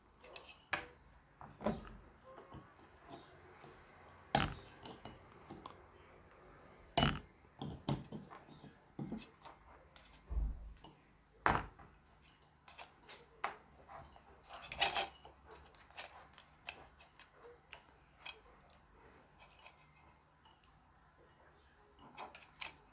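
Scattered metallic clinks and knocks as a metal mini USB fan's cage is bent and pried apart to free the motor. The loudest knock comes about four seconds in, and the clinking dies away near the end.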